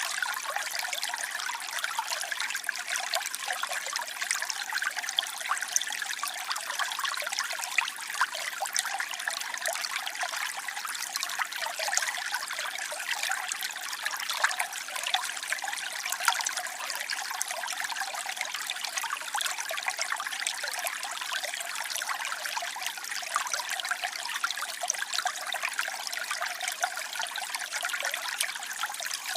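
Waterfall: water falling and splashing steadily, a bright, even hiss full of small splashes with little deep rumble.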